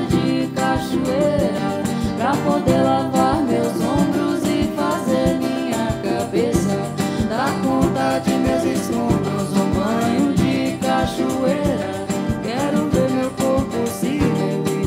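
Live band music with guitar and a singing voice.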